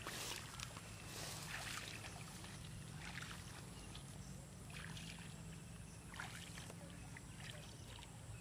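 Faint water splashing and sloshing from a person wading through shallow pond water, a soft splash about every second or so as the legs push through.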